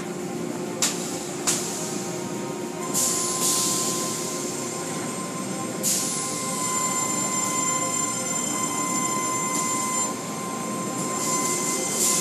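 Automatic tunnel car wash running: machinery whining steadily under a wash of spraying water, with short surges of hiss a few times.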